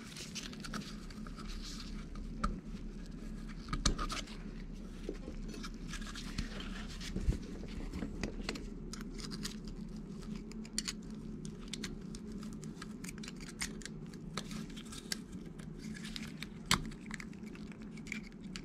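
Small, irregular metal scraping and clicking of a thin pick tool prying at a screen seated deep in the bore of a sprayer pump head. A steady low hum runs underneath.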